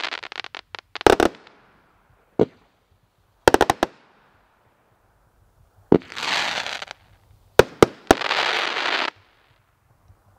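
A 500-gram fireworks cake firing its last volleys: sharp reports, some in quick clusters, and two stretches of dense crackling from crackle bursts. The firing stops about nine seconds in.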